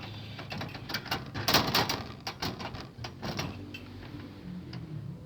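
A quick irregular run of clicks, knocks and rattles, loudest about one and a half to two seconds in, dying away before the end.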